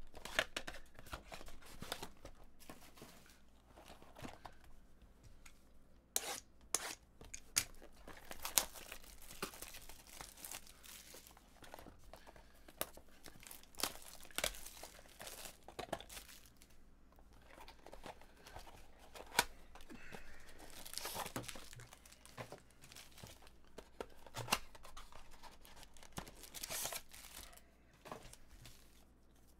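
Wrappers of 2018 Bowman Chrome hobby card packs being torn open and crinkled, with irregular sharp crackles and snaps throughout.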